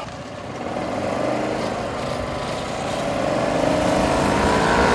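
Go-kart engine accelerating, its pitch rising and getting louder as the kart comes closer.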